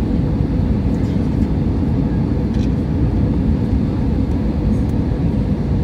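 Steady roar of engine and airflow noise inside an airliner's passenger cabin on approach to landing, heaviest in the low end, with a faint steady hum above it.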